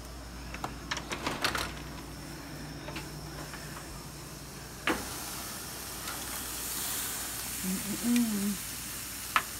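Chicken quarters sizzling on a grill, a steady high hiss that builds after a sharp clack about five seconds in. Scattered handling clicks come early, and a tongs click near the end.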